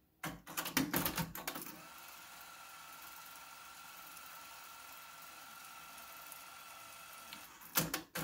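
Sony ES cassette deck's tape transport clicking and clunking as rewind is engaged, then a 120-minute cassette rewinding at speed with a steady hiss-like running sound and a faint high whine for about six seconds. Near the end there are more clicks as the transport buttons are pressed again.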